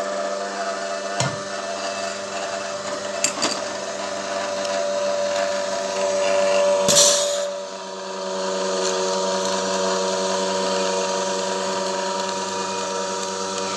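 Electric screw oil press running steadily with a motor hum while crushing nigella (kalonji) seeds. A few sharp clicks come in the first few seconds, and a brief louder rush of noise comes about seven seconds in.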